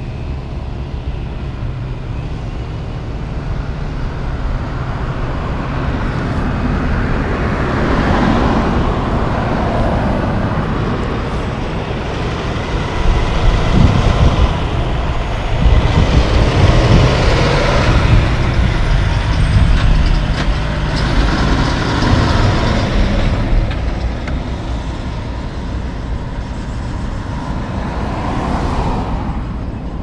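Heavy tri-drive Kenworth T880 slinger truck's diesel engine pulling out onto the road and driving past. The sound builds to its loudest about halfway through, then fades.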